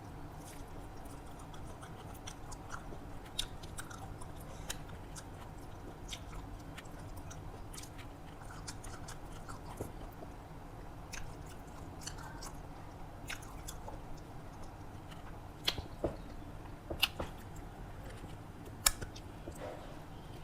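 A person chewing mouthfuls of rice and fried vegetables close to the microphone, with soft wet mouth clicks throughout and a few sharper clicks near the end, over a steady low hum.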